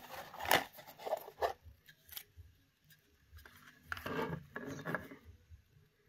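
Cardboard packaging and plastic wrap being handled as a boxed smart light switch is slid out of its box: a few short scrapes and rustles, the longest about four seconds in.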